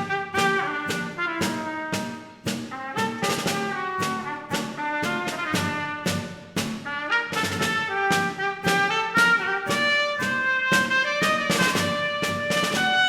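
Live brass ensemble music: trumpet and trombone playing an instrumental tune in a steady rhythm over percussion strokes.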